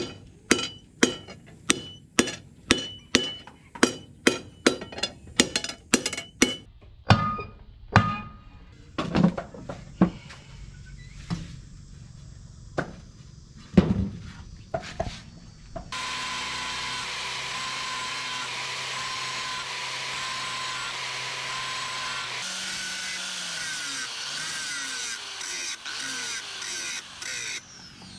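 Hand hammer striking red-hot rebar on a steel anvil, ringing blows about two a second that then slow and thin out. About halfway through, a steady high whine with a hiss starts suddenly and runs on.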